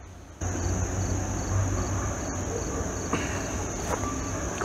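Steady high-pitched insect chorus with a faint regular ticking, about three ticks a second, over a low rumble, starting abruptly about half a second in. A single knock near the end.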